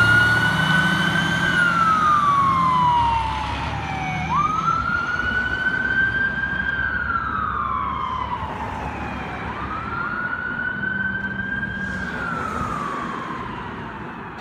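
Pierce Enforcer fire engine's siren wailing in slow cycles, each a quick rise, a short hold and a long falling glide, about every five seconds, growing fainter as the truck drives away. The truck's engine rumbles under it for the first few seconds.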